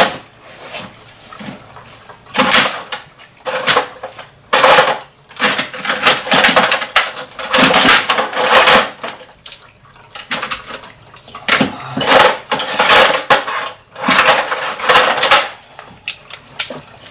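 Ratchet wrench with a 12 mm socket working the bolt on a purge valve bracket: repeated rasping metal ratcheting strokes, about eight bursts at uneven gaps.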